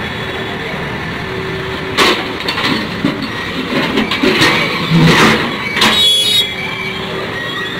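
Backhoe loader's diesel engine running while its bucket works on broken concrete paving, with a series of sharp crashes and scrapes from about two seconds in, and a brief high metallic ring near the end.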